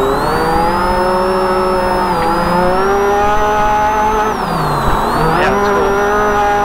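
UTV engine under hard throttle, heard from inside the cab: the revs climb, hold steady, drop briefly about four and a half seconds in as the throttle is lifted, with a sharp knock, then climb and hold again.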